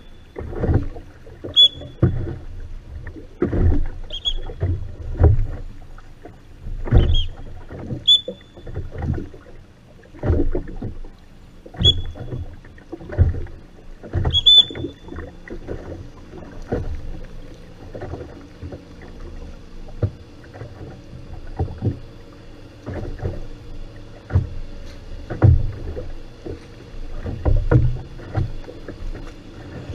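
Oars of a Venetian rowing boat working the water: irregular knocks and splashes of the strokes every second or two, several with a short high squeak in the first half. A faint steady hum joins about halfway through.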